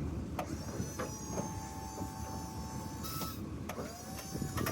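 Myers snowplow's electric-hydraulic pump motor whining as the plow is cycled up and down, with a steady whine, then a pitch that rises and falls near the end, and several sharp clicks. The plow is being run to bleed air out of its hydraulic system.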